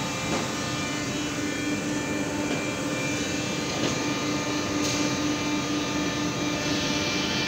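Hot press machine running with a steady mechanical hum and a constant tone. A hiss starts to swell near the end.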